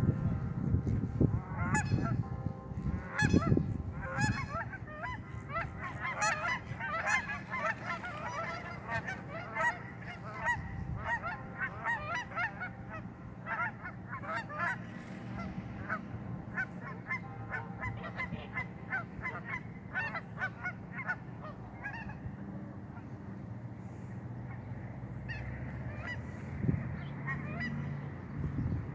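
A flock of geese honking, many short calls overlapping in a steady stream that thins out to a few scattered honks near the end.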